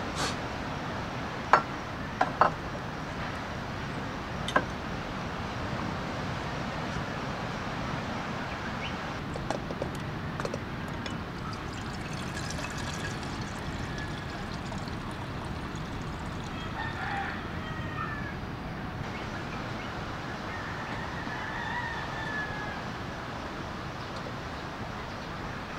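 Water running from a plastic water jug's spigot into a camping kettle, with a few sharp knocks in the first few seconds. A rooster crows and clucks in the second half, over a steady background hiss.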